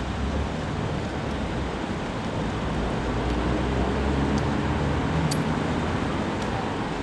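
Street traffic: cars passing close by and a single-deck bus approaching, a steady engine rumble with tyre noise that swells about four seconds in.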